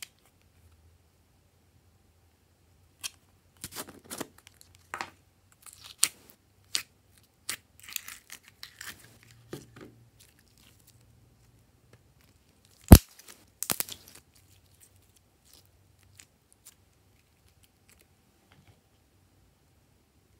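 Gold glitter slime squeezed and stretched by hand: scattered sticky crackles and small clicks, with one sharp loud pop about thirteen seconds in.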